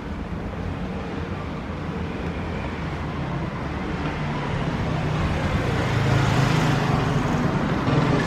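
Street traffic noise: a steady wash of road sound, with a car's engine growing louder over the last few seconds as it draws near.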